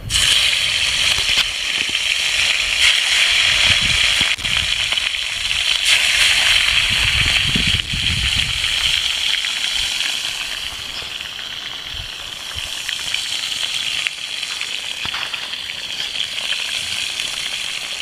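Whole whiting sizzling as they fry in hot oil in a pan. The loud sizzle starts suddenly as the fish go into the pan and keeps on steadily.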